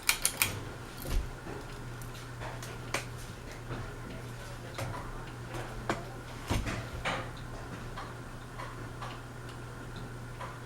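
Westinghouse Apollo Elite ceiling fan running on medium speed: a steady low motor hum with scattered light ticks and clicks. A quick run of sharp clicks right at the start, as the fan is switched to medium.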